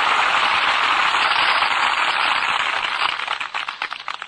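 Crowd applauding, heard on an old, narrow-band recording; the applause thins into scattered separate claps and dies away near the end.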